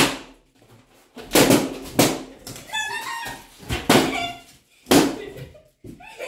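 Balloons being stomped on and popped underfoot on a tiled floor: a series of sharp bangs at irregular intervals, several seconds apart at most.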